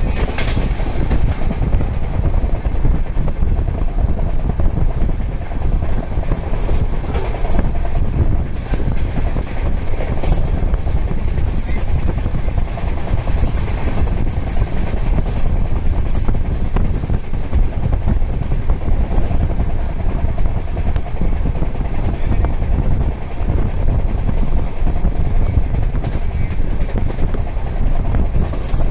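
Express passenger train running on the track: a steady, loud low rumble of the moving coach.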